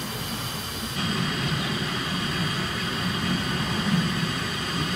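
Narrow-gauge steam locomotive running with a steady low rumble. The sound changes abruptly about a second in.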